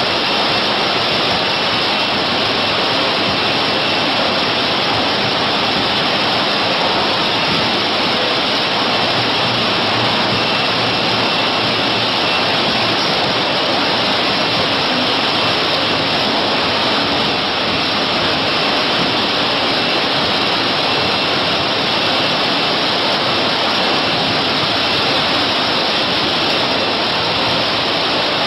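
Steady, even machine din from a chocolate conveying and flow-wrap packaging line running, a hiss-like noise with no distinct strokes or rhythm.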